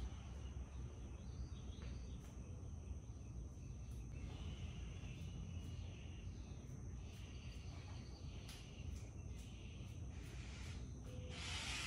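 Faint clicks and rustles of a shirt on a hanger being hung and adjusted on a wall hook, over low room rumble and a steady thin high whine. A short, louder rustle near the end.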